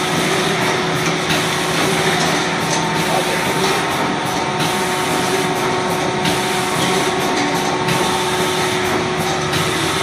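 CX-YGF high-speed eye drop filling, plugging and capping machine running steadily: a constant mechanical noise with a steady hum through it.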